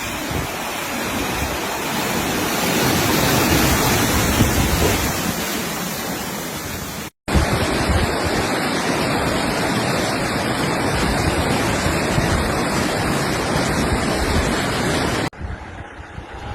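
Loud, steady rushing of water, the sound of flash-flood water and heavy rain. It breaks off abruptly about seven seconds in, returns, then drops to a quieter rushing near the end.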